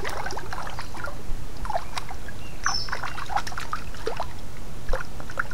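Shallow river water trickling and sloshing around wading boots, with birds chirping and one short high whistle about midway.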